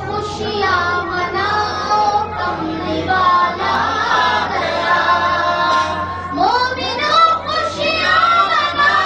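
A high voice singing a slow, melodic devotional line, with gliding and held notes, over a steady low hum.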